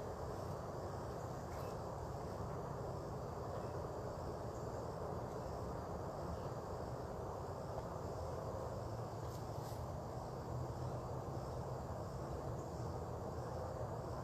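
Steady insect chorus with a continuous high trill, over a low steady rumble, with a few faint short chirps.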